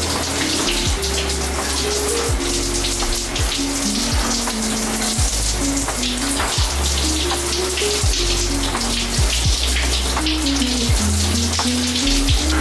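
Shower water spraying steadily, under background music with a deep, shifting bass line, a stepping melody and a regular beat.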